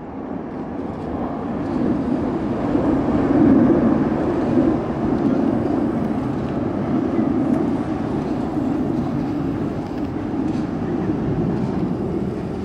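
Distant rumble of a formation of Kawasaki T-4 jet trainers passing overhead, swelling a few seconds in and then slowly fading.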